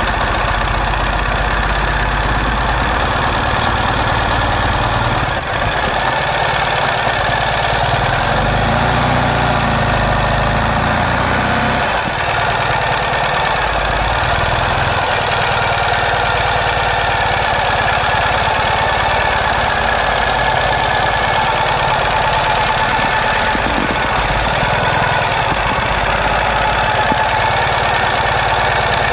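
Ural sidecar motorcycle's air-cooled flat-twin engine running steadily at low road speed, its low note swelling for a few seconds about eight seconds in.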